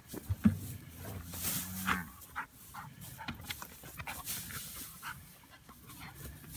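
A farm dog panting and rustling through loose hay as it tugs at and scatters the bales, with a sharp knock about half a second in.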